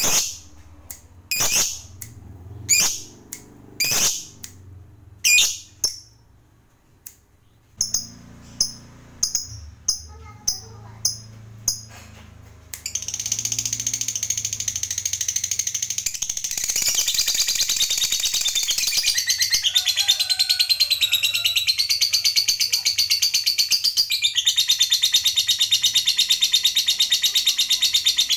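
A lovebird calling: sharp single shrieks about once a second, then quicker short chirps. About halfway through it breaks into a long, unbroken, rapid chattering trill, the 'ngekek panjang' long song that lovebird keepers prize.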